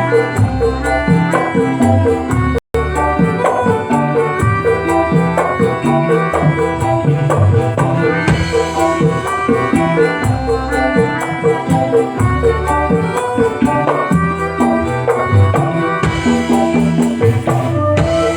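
Music with a steady percussion beat and melodic instruments, played as a sound-system check; it cuts out for an instant about three seconds in.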